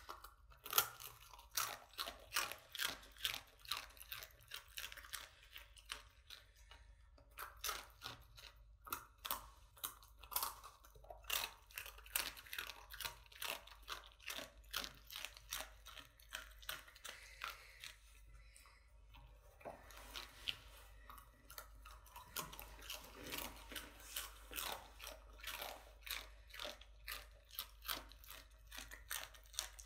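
A dog crunching and chewing dry, uncooked instant ramen noodles: a quick run of crisp crunches, about two or three a second, broken by a couple of short pauses.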